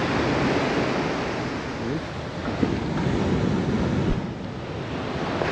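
Ocean surf breaking and washing over a rocky shore, with wind buffeting the microphone. The wash eases briefly about four seconds in.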